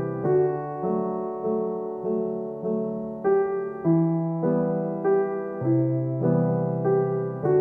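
Background piano music: a gentle, slow solo piano piece with notes struck at an even, unhurried pace.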